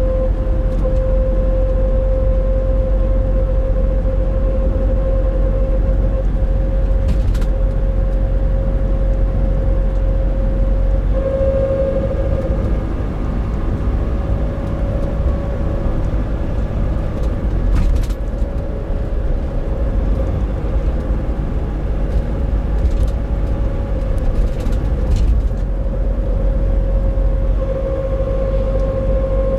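Nissan NV350 Caravan with the YD25DDTi diesel driving at steady throttle, its low running rumble carrying a steady droning 'kooon' tone that shifts slightly in pitch about a third of the way in and settles back near the end. The owner suspects the drone, heard around 1000–1500 rpm, may come from the differential.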